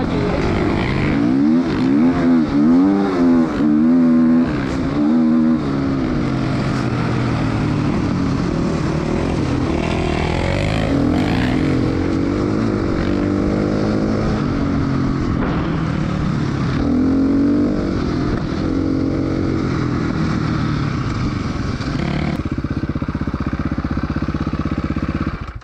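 KTM dirt bike engine being ridden off-road, revving up and down repeatedly as the throttle is worked, then settling to a steady low idle in the last few seconds.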